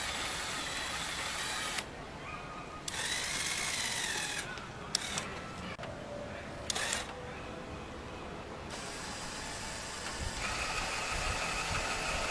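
Small electric motors of a LEGO machine whining, their pitch rising and falling as they run, broken by abrupt stops and starts and a few sharp clicks. A steady high whine comes in near the end.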